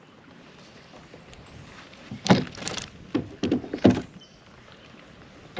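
A quick series of five or so short knocks and splashes between about two and four seconds in, as a hooked fish is landed on the kayak.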